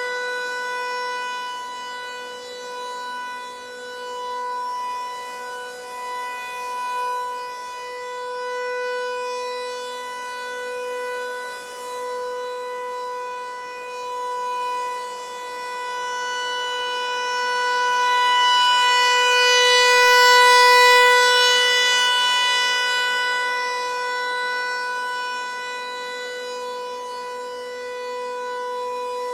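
Federal Signal 508-128 rotating siren sounding a steady alert tone at a constant pitch. The volume swells and fades as the rotating head sweeps around, and it is loudest about twenty seconds in.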